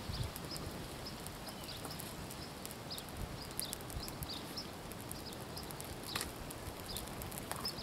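Wood campfire crackling, with many sharp little pops scattered throughout. Short, high bird chirps come now and then in the background.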